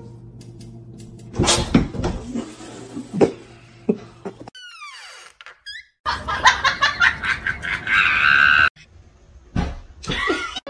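People laughing, with a few sharp knocks and clatters between.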